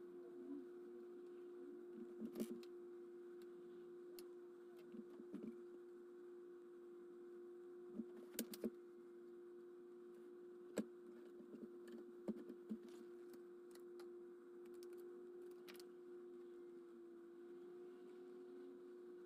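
Faint steady hum with scattered light clicks and taps, a few in quick succession about eight seconds in, as of small tools handling a phone.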